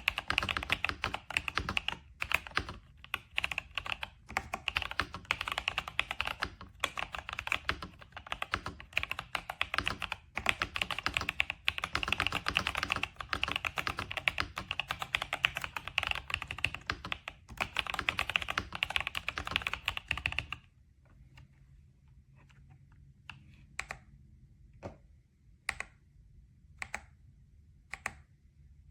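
Typing on an RK Royal Kludge S98 mechanical keyboard with tactile switches and PBT keycaps: a fast, continuous run of keystrokes that, after about twenty seconds, thins to single key presses roughly once a second.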